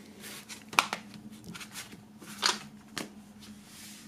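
Handling noise from a plastic CD jewel case and the box contents being picked up and moved on a wooden table: a few short clicks and rustles, the sharpest about two and a half seconds in. A faint steady hum runs underneath.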